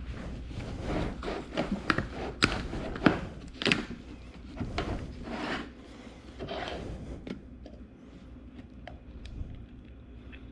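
Motor oil being poured from a plastic 5-quart jug into a measuring container, with irregular knocks and glugs over the first seven seconds or so, then quieter.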